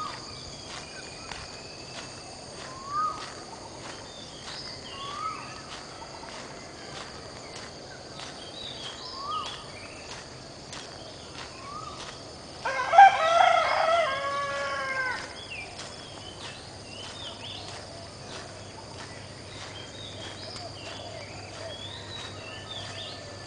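A rooster crowing once, about halfway through: one long call. Under it runs a steady high insect drone, with short bird calls scattered through.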